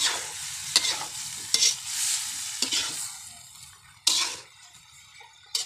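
Metal spatula scraping and stirring chicken livers frying in a steel wok, over a steady sizzle. Six scraping strokes come about once a second, and the sizzle grows quieter in the second half.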